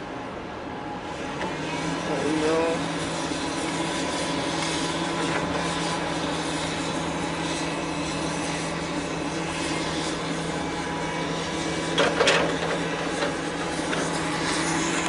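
Engine running steadily with a low hum over the general harbour noise, with a brief knock about twelve seconds in.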